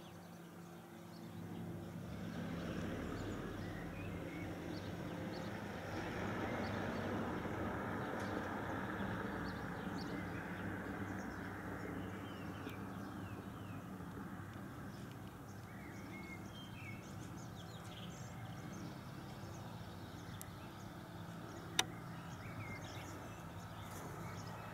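Distant rumble of an approaching electric train running on the rails, swelling about two seconds in and then slowly easing. Small birds chirp over it, and there is one sharp click near the end.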